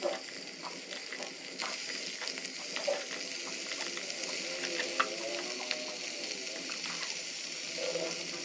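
Raw country chicken pieces sizzling in hot oil and golden-fried onions in an aluminium pressure cooker, a steady hiss with a few scattered clicks and taps. The sizzle grows louder about a second and a half in.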